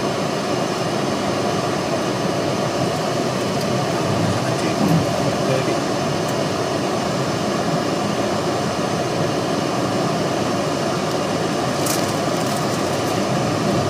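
Steady road and engine noise heard inside a car's cabin while driving on a highway.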